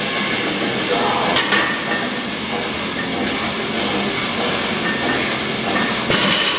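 Loaded barbell with 435 lb of plates set down onto a rubber gym floor near the end, landing with a heavy clank of plates. A smaller knock comes about a second and a half in.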